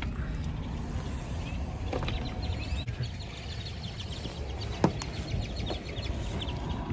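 Birds chirping in quick runs over a steady low outdoor rumble, with a single knock about five seconds in.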